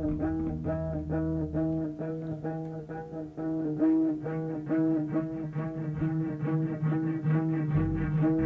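Instrumental music: a quick repeating figure of short pitched notes over a steady held low note. A deep bass line drops out about two seconds in and comes back near the end.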